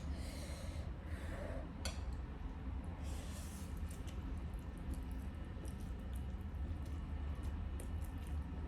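A person eating noodles: faint chewing and slurping with a few short hissy swells of breath or slurps and small clicks, over a steady low hum.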